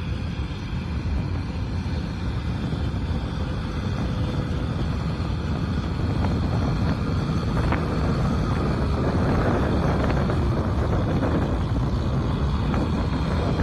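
Kubota M6040SU tractor's diesel engine running under load while it drags a disc harrow through a flooded, muddy paddy. It gets steadily louder as the tractor draws nearer.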